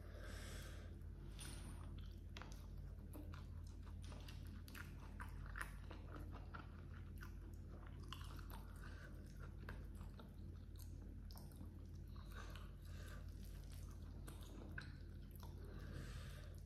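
Close-miked eating sounds: fingers squishing and scooping rice with baby squid and petai beans on a banana leaf, and chewing with many small wet clicks and crackles, over a steady low hum.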